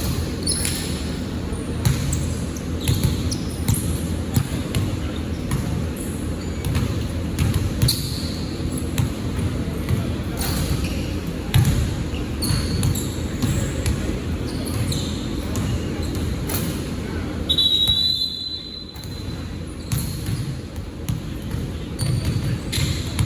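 Basketball game on a gym court: the ball bouncing, short high squeaks from the floor, and players' voices. A sharp high whistle sounds for about a second roughly three-quarters of the way through.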